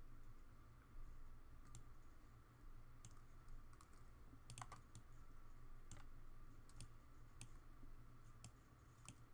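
Faint, irregular clicks of a computer mouse and keyboard, about a dozen in all, over a low steady hum.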